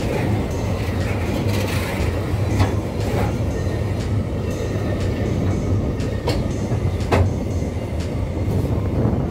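Empty freight train's open-top ore wagons rolling past close by: a steady rumble of steel wheels on the rails, with a few sharp metallic clanks.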